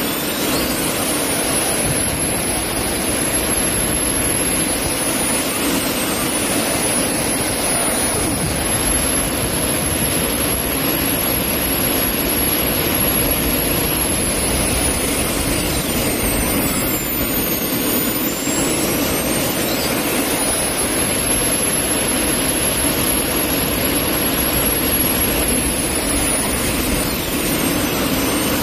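Three small turbojet engines on a go-kart running hard: a steady rushing roar with a high turbine whine that dips in pitch and climbs back several times as engine speed drops and recovers.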